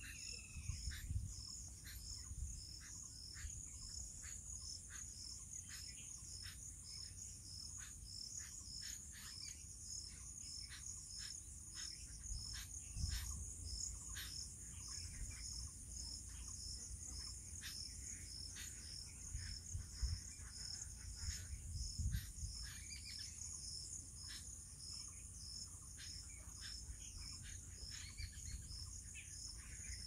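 Insects calling: a steady high-pitched hum with a rapid, even chirping layered over it, and scattered short ticks. A faint low rumble comes and goes underneath.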